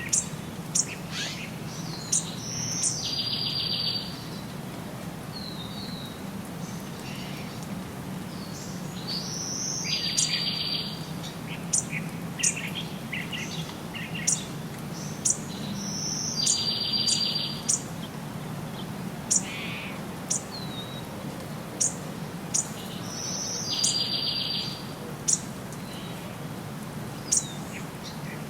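Songbirds singing: one bird repeats a high phrase ending in a buzzy trill about every seven seconds, with short sharp chirps in between, over a steady low background rumble.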